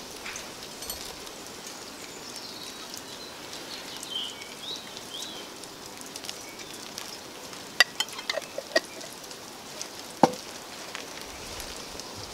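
Steady crackling hiss, with a few sharp clinks and knocks of jars and cookware being handled, about eight and ten seconds in. Faint bird chirps come in around four seconds.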